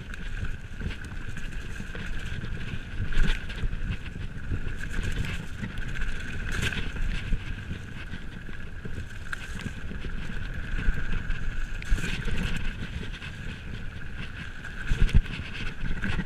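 Mountain bike ridden fast down a gravel forest trail: wind rushing on the microphone and tyre noise over the gravel, with a steady high buzz under it. Sharp knocks and rattles come as the bike hits bumps, the loudest near the end.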